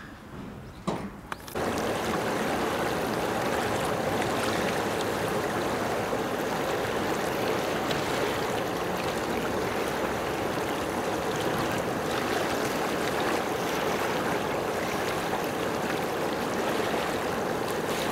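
A steady rush of flowing water that starts suddenly about a second and a half in, after two brief knocks.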